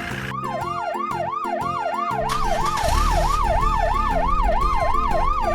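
A police car siren sound effect wailing rapidly up and down, about three sweeps a second, over background music.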